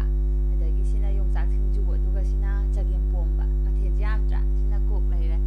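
Loud, steady electrical hum with a ladder of even overtones, a recording fault that buries everything else, and a faint voice over it.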